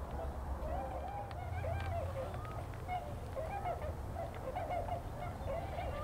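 A flock of tundra swans calling: many short, overlapping calls that bend up and down in pitch, one after another, over a low steady rumble.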